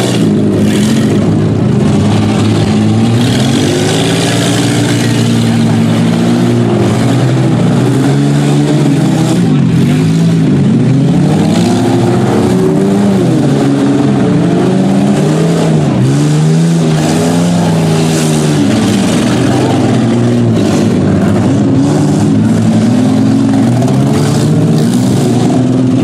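Several demolition-derby minivan engines revving up and down over one another, their pitch rising and falling every second or two in a loud, continuous din.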